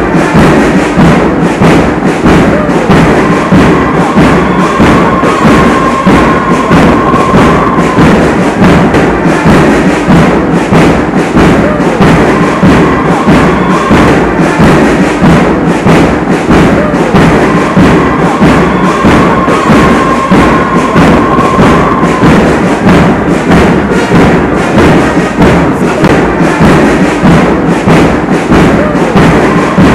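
Background music with a steady, heavy beat and a long held note that comes and goes.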